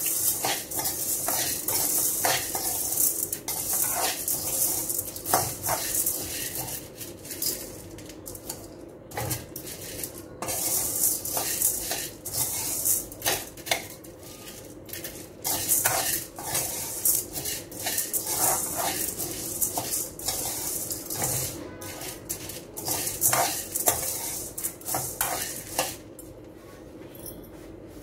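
A metal spoon stirs and scrapes dry split lentils and peppercorns in an aluminium kadai as they dry-roast. It makes a continuous gritty rattle with frequent sharp clinks of spoon on pan, and stops about two seconds before the end.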